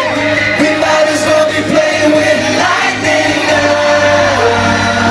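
Live pop band performance: band music with voices singing sustained notes.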